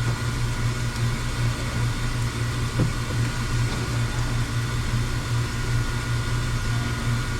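Steady low machine hum with a few faint constant higher tones over a hiss, and one soft knock about three seconds in.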